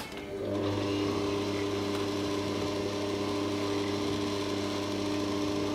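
Bosch stand mixer switched on with a click, its motor then running at a steady speed from about half a second in as it beats cake batter.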